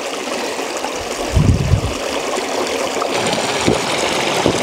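Stream water running steadily, with a brief low thud about a second and a half in.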